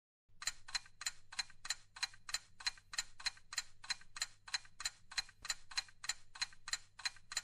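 Rapid, even ticking sound effect, about four ticks a second, starting just after a brief silence, over a faint steady hum.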